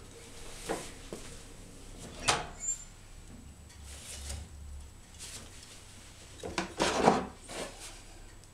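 Wood-burning stove being loaded: a sharp click about two seconds in as the firebox door is opened, then a split log of firewood pushed in over the embers, knocking and scraping against the stove's frame and grate, loudest just before the seventh second.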